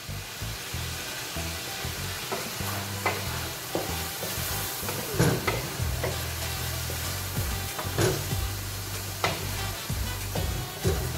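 Chicken sizzling as it fries in a pan, stirred with a spatula that scrapes and knocks against the pan about once a second over a steady hiss.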